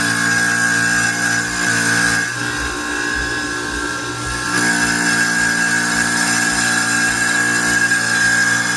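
A steady mechanical whine over a hum, like a running motor; the lower hum drops out for about two seconds near the middle, then returns.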